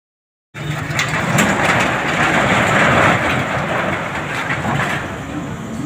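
Loud, steady mechanical noise with rattling and sharp knocks, starting suddenly about half a second in.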